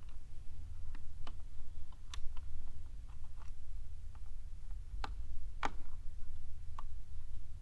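Scattered light clicks and taps of small parts being pressed and fitted together while a dash screen's mounting plate is worked into place, about eight in all, the loudest about five and a half seconds in, over a steady low hum.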